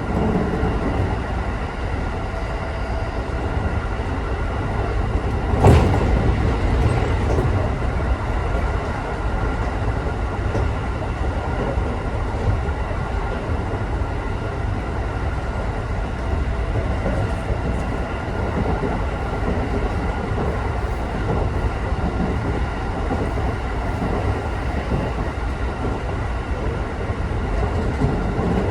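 Electric local train running, heard from inside the car: a steady rumble of wheels on rail, with one sharp knock about six seconds in.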